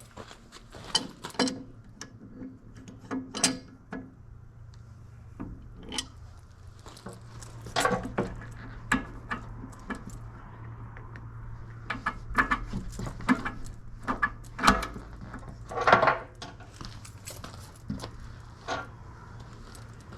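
Irregular metal clicks and clinks of hydraulic hose couplers and fittings being handled and connected, over a steady low hum.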